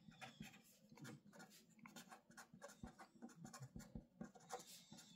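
Faint scratching of a pen writing on paper, a quick, irregular series of short strokes.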